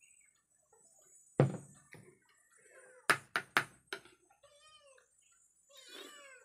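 A cat meows several times. A ceramic mug is set down on a table with a thump about a second in, and a spoon clinks against a plate a few times around the middle.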